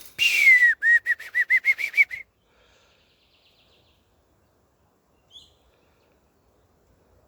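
Whistling kite calling: one long whistle falling in pitch, then a quick run of short notes that climb in pitch, all within about two seconds.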